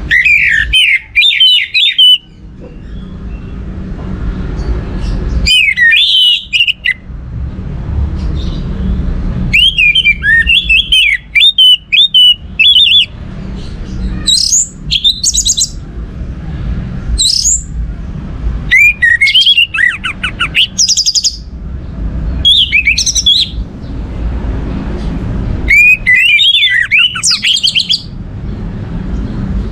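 Orange-headed thrush singing: about eight short, varied phrases of quick rising and falling notes, each a second or three long with pauses between, over a steady low rumble.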